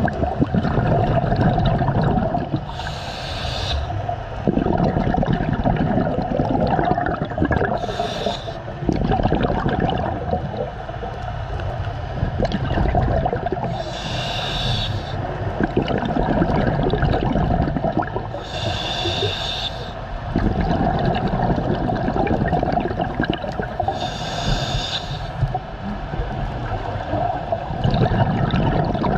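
A scuba diver breathing through a regulator underwater. A short hissing inhale comes about every five seconds, six in all, and between them a low rumble of exhaled bubbles.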